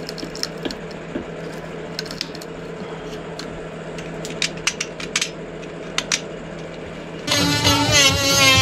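Glass tube being cracked and broken away with pliers: sharp clicks and snaps, with small glass fragments dropping. About seven seconds in, a small handheld power tool starts up and runs louder, its whine wavering in pitch.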